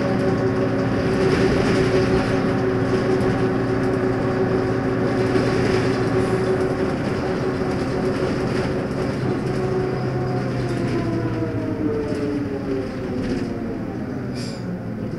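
Leyland Lynx single-decker bus's diesel engine running steadily under way, then falling in pitch over the last few seconds as the revs drop. A brief high-pitched sound comes near the end.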